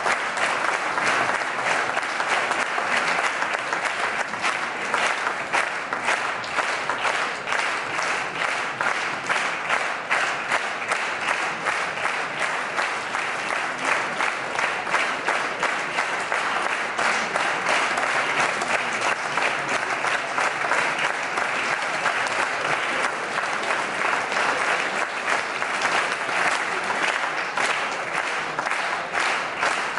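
Audience applauding: many hands clapping in a dense, even mass at a steady level.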